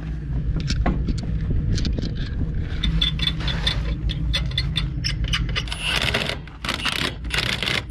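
Cordless impact wrench running lug nuts onto a side-by-side's remounted wheel in two short hammering bursts in the second half, after a run of metallic clinks from the nuts and tools.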